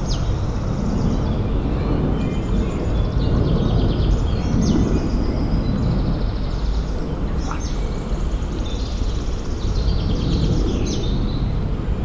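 Woodland birds singing short, high, rapid trills again and again over a steady low rumble.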